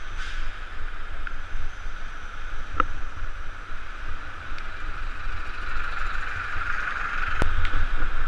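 Riding a bicycle through traffic on a rain-wet road. A steady hiss of tyres on the wet pavement runs over a low wind rumble on the microphone. Two sharp clicks come about three seconds and seven seconds in.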